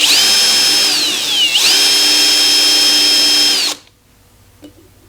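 Power drill boring a hole through a drill jig for drawer hardware: a high motor whine at full speed that dips about a second and a half in as the trigger eases or the bit loads, speeds back up, then cuts off.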